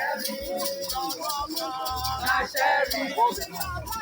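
Upbeat music with a singing voice over a fast shaker-like percussion and a pulsing bass beat.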